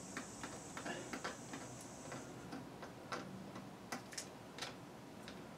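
Faint, irregular small ticks and scratches of a dull razor blade trimming masking tape along the rough edge of a casting, a few clicks a second. A thin high tone fades out about two seconds in.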